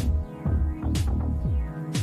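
Background electronic music with a steady beat: a sharp hit about once a second over falling bass notes.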